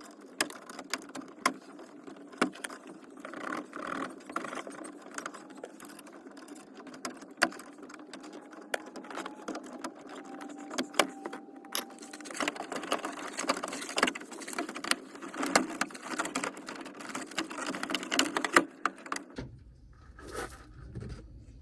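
Irregular clicks, knocks and rattles of a car's plastic interior door panel and its trim being pried and worked loose by hand, with many sharp snaps over a steady hum.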